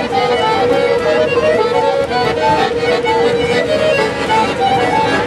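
Piano accordion playing a melody of short notes over a steady held low note.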